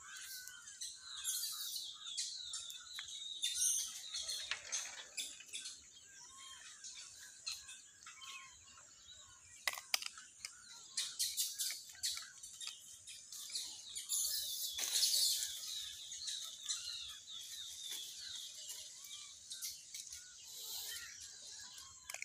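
Small birds chirping, many short high calls throughout, with a busier, louder stretch about eleven to sixteen seconds in.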